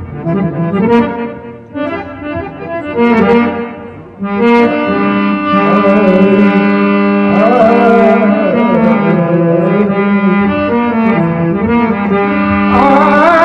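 Devotional bhajan music led by a harmonium playing long held notes and a moving melody, with a few drum strokes in the first seconds.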